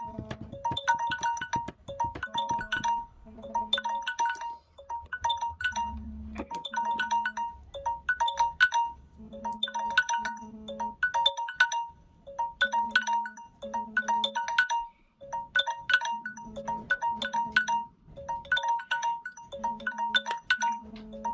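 Samsung Galaxy phone alarm tone sounding: a short electronic melody that loops without pause.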